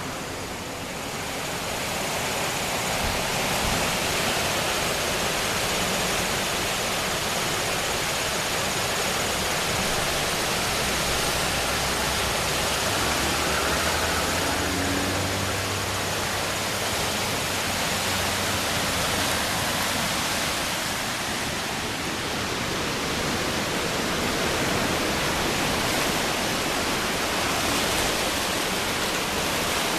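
River at flood stage, its fast water rushing in a steady, even noise.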